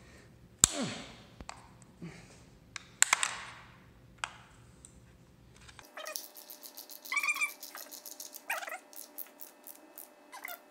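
Hand work on a Jaguar E-Type engine's cam covers: a few sharp knocks and scrapes as the stiff old cardboard ignition-lead conduit is worked into place. About halfway through comes rapid clicking of a ratchet wrench on a nut, with a couple of short squeaks.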